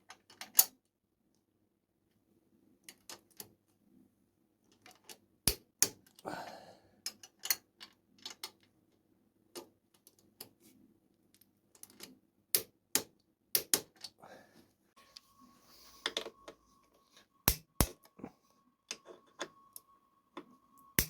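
Torque wrench clicking irregularly as motorcycle frame bolts are tightened, with single clicks and sharp paired clicks, the louder pairs being the wrench clicking over as the set torque is reached.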